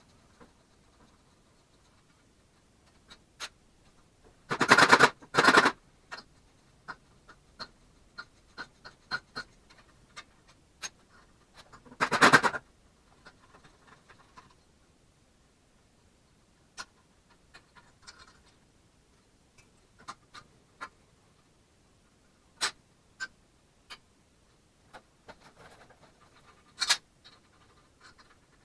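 Hand tools and metal engine parts clicking and clinking on a steel workbench while a Predator 224cc engine is taken apart. Three short, loud bursts of rapid clicking stand out, two together about five seconds in and one about twelve seconds in.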